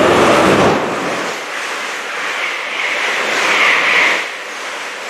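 GWR Hitachi Intercity Express Train passing the platform at speed, close by: a loud rush of wheels on rail and air. It is loudest as the front arrives, swells again about three to four seconds in, then eases.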